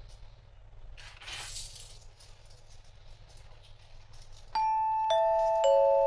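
A short noisy rustle about a second in. Then, a little past halfway, a descending chime of three bell-like notes, each ringing on under the next: an edited-in chime sound effect.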